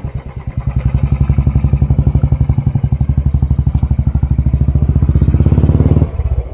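Royal Enfield motorcycle engine running while riding, with an even, fast thumping beat. It gets louder about half a second in, holds steady, then drops off suddenly near the end.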